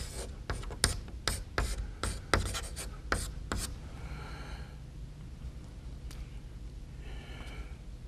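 Chalk writing a word on a blackboard: a quick run of taps and scrapes from the chalk strokes, which stops about three and a half seconds in.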